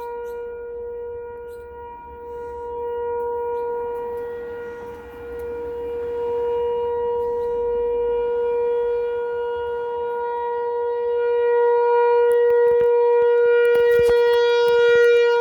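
American Signal ASC-T 108 outdoor warning siren sounding a steady tone during a test, its volume swelling and easing every few seconds and loudest near the end. A few sharp clicks about three-quarters of the way through.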